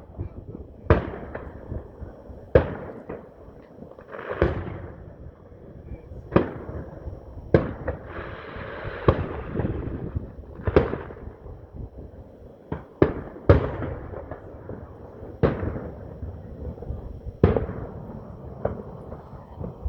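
Fireworks going off: about a dozen sharp bangs at irregular intervals, each trailing into a rumble, with a stretch of hiss and crackle around eight to ten seconds in.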